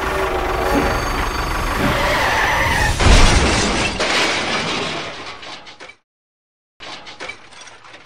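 Toy tractor's engine sound running, then about three seconds in a loud crash with breaking and clattering as it rams the toy train, dying away by about six seconds. A few faint clicks follow near the end.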